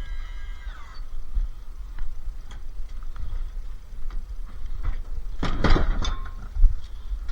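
A short music sting fades out with a falling pitch in the first second. Then come scattered knocks, and about five and a half seconds in a loud burst of metallic clanking and rattling from scrap appliances being handled.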